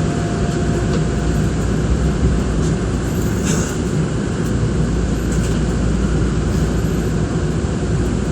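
A Nankai Koya Line electric train running, heard from inside the front car: a steady rumble and hiss of the car in motion, with a few faint clicks.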